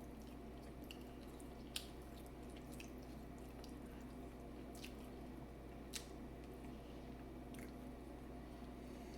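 Faint wet squishes and a few sharp clicks from eating a seafood boil by hand, over a steady low hum.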